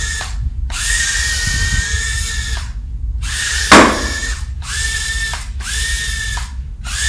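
Small toy quadcopter drone's motors whining at a steady high pitch in about six bursts of a second or so each, cutting out in between. One sharp knock about halfway through is the loudest sound.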